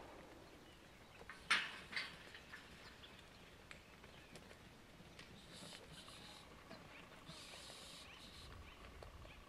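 Faint outdoor noise with a few sharp knocks, the loudest two about a second and a half and two seconds in, then scattered faint clicks and soft hissing.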